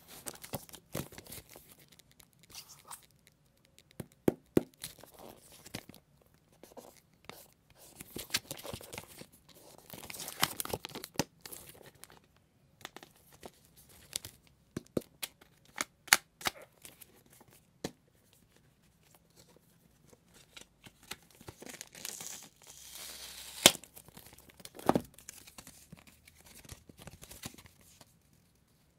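Unboxing of an iPhone 7 Plus retail box: plastic shrink-wrap torn and crinkled off, the cardboard box and its paper inserts handled, with scattered sharp clicks and taps from the box being opened.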